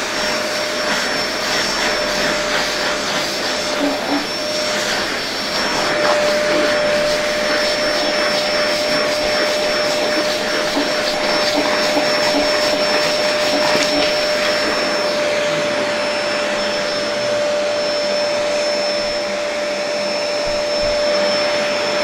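INGCO 2000 W multi-cyclone canister vacuum cleaner running steadily at full suction. The motor holds one steady whine over the rush of air through the nozzle.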